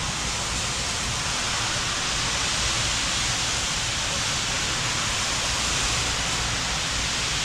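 Steady, even hiss with a low rumble underneath, unchanging throughout, with no distinct clicks or knocks.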